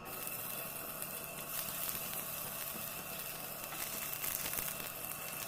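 Ginger pieces sizzling in hot ghee in a pan: a steady frying hiss with fine crackles.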